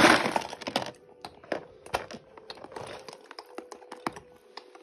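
Hard plastic Lego Duplo bricks and figures clicking and clattering against each other as a hand rummages through a box of toys. A denser, rustling clatter comes in the first second, then scattered single clicks.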